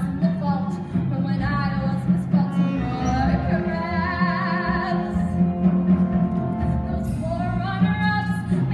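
A woman singing a show tune over band accompaniment, holding long notes with a wide vibrato, heard from the audience seats of a large hall.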